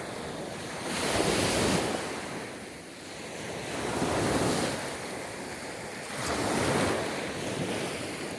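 Sea waves breaking and washing on the shore, swelling and fading about every two and a half to three seconds, with wind on the microphone.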